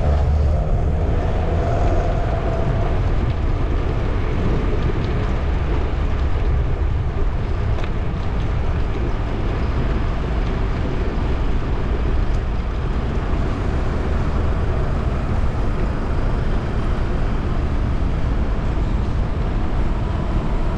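Steady rush of wind buffeting the microphone and road noise from a moving bicycle, with street traffic passing; a faint engine hum rises in the first few seconds.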